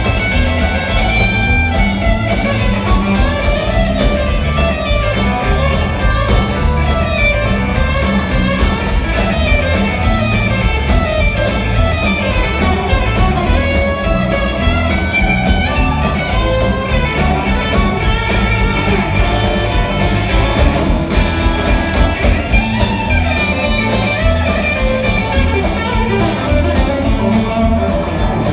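Live blues band playing: electric guitars over drums and Hammond organ, at a steady driving pace.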